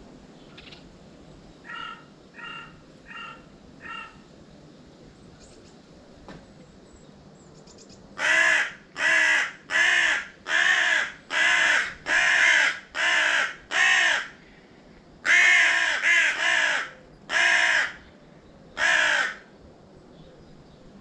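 Crow cawing: four faint caws a couple of seconds in, then a loud run of about fourteen caws, evenly spaced, starting about eight seconds in, with one short pause partway through.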